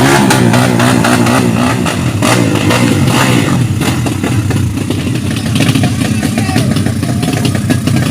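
Yamaha underbone racing motorcycles revving hard. The engine pitch swings up and down with the throttle over the first couple of seconds, then settles into a dense, rasping high-revving drone.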